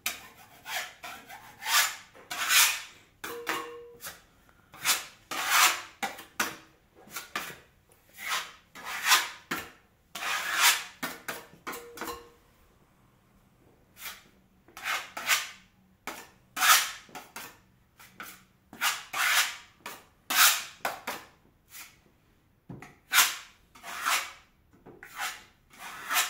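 A putty knife scraping filler across a wall in short repeated strokes, about one a second, with two brief pauses.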